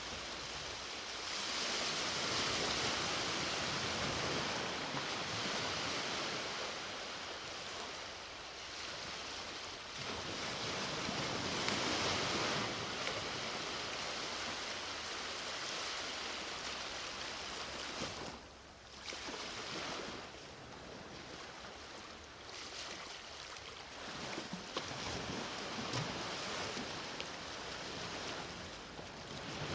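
Sea waves washing onto a beach: a continuous surf hiss that swells and eases in slow surges, with a brief lull about two-thirds of the way through.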